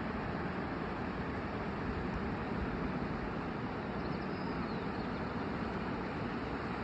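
Steady rushing noise of ocean surf breaking along a beach, with wind rumbling on the microphone.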